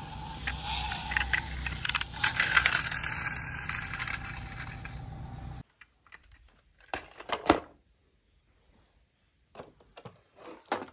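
Toy dump truck's small wheels rolling and scraping over rough ground, with many little clicks and rattles. This cuts off suddenly, followed by a few light clicks of toy vehicles being handled.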